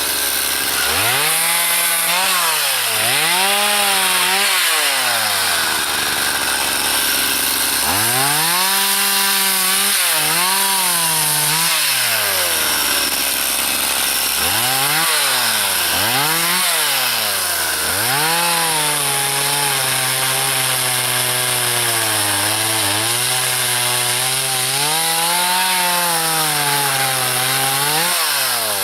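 Two-stroke chainsaw cutting up a felled tree, revving up and dropping back again and again, each rise running into a held high pitch. Near the end it holds one longer, wavering cut.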